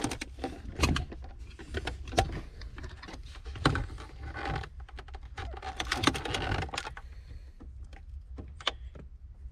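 Flat screwdriver and fingers prying at the plastic shifter trim of a 2011 Porsche Panamera 4S's center console: a run of irregular small clicks and ticks, with a couple of brief scraping stretches.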